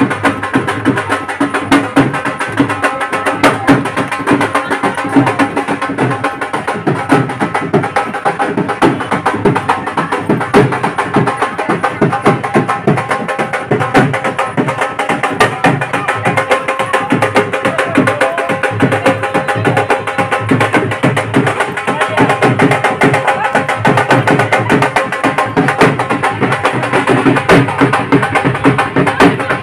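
Dance music with fast, steady drumming.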